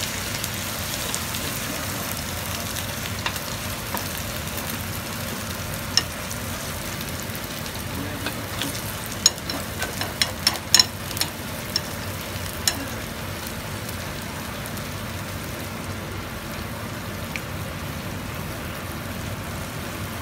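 Kimchi pancake batter frying in plenty of hot salad oil in a nonstick frying pan, with a steady sizzle like tempura: the sign that the oil was heated enough before the batter went in. A metal spoon clicks and scrapes on the pan a few times, mostly around the middle, as the batter is spread flat.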